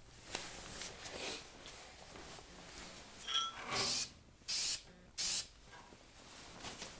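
Aerosol can of Krylon spray paint hissing in three short bursts in the second half: quick passes of paint over an airsoft rifle stock.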